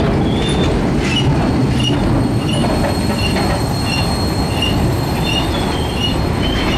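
Freight cars of a slow-moving train rolling past, wheels rumbling steadily on the rails, with short high squeals from the wheels repeating about every half second.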